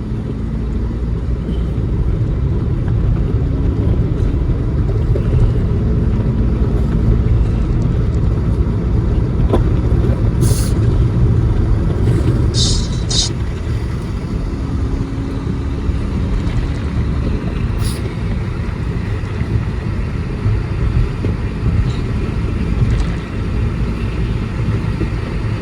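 Car driving, heard from inside the cabin: a steady low rumble of engine and tyre noise, with a few brief faint hisses.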